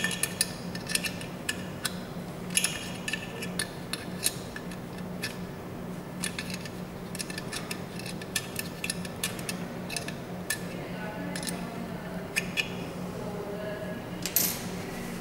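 Metal clicking and scraping as a tool and fingers twist the drive coupling on the underside of an upturned metal bread-maker pan: a string of irregular sharp clicks, with a louder clatter near the end, over a steady low hum.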